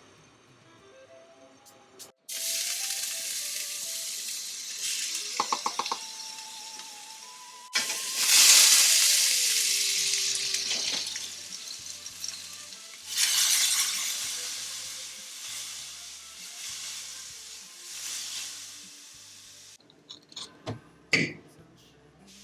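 Food frying in a hot oiled pan, sizzling loudly. The sizzle comes on suddenly three times and fades slowly after each. A few sharp clinks come near the end.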